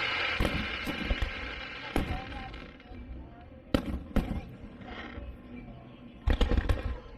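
Fireworks going off: a crackling hiss from bursting shells fades over the first couple of seconds, then sharp booms follow at irregular intervals, with a quick cluster near the end.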